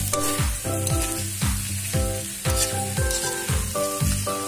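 Background music with a steady electronic beat and chords, over the sizzle of chopped roast pork frying in a steel wok as a metal spatula stirs it.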